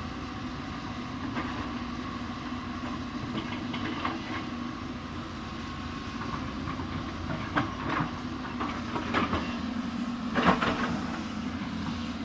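Hyundai 220 excavator's engine running steadily at work, with several metallic clanks and scrapes in the second half, the loudest about ten and a half seconds in.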